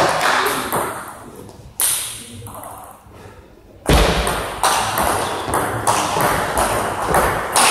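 Table tennis rally: the ball clicks in quick succession off the bats and the table, starting with a loud hit about four seconds in, after a single click near two seconds and a quiet moment.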